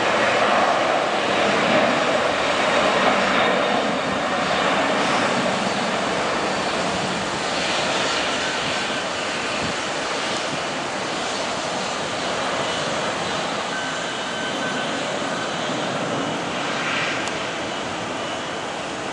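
Boeing 747-400 jet engines at takeoff thrust: a loud, steady rush of jet noise through the takeoff roll and liftoff, slowly fading as the aircraft climbs away.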